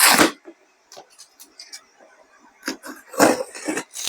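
Cardboard packaging being pulled open and handled, in short rustling, tearing bursts with scattered small clicks: a loud burst at the start and another cluster about three seconds in.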